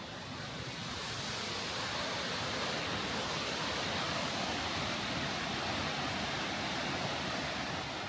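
Kegon Falls, a tall plunge waterfall, making a steady dense rush of falling water that swells in over the first couple of seconds and begins to fade near the end.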